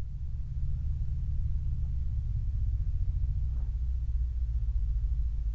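Steady low rumble of a vintage pickup truck's engine as it drives slowly across the field.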